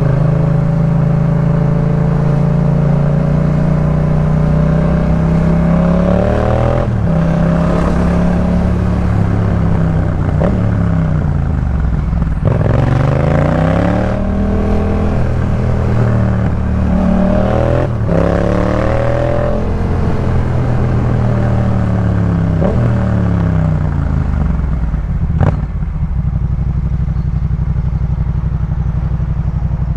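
Yamaha MT-07's parallel-twin engine through a Jeskap K4 full aftermarket exhaust, its note rising and falling repeatedly as the throttle is opened and closed, with sharp drops in pitch. A single sharp click comes near the end, then the engine settles into a steadier, lower running note.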